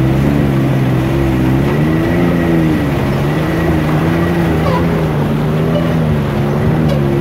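Can-Am Maverick X3 X RS side-by-side's turbocharged three-cylinder engine running steadily, its pitch wavering slightly, over the constant rush of a flooded river.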